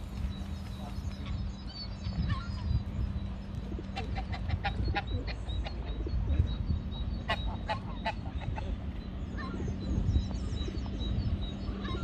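Water birds on a lake calling, with quick series of short harsh calls about four seconds in and again about seven seconds in, and fainter calls between, over a steady low rumble.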